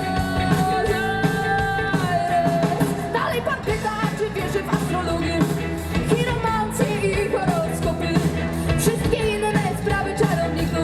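Live rock band playing a song, a singer's voice carried over a steady drumbeat.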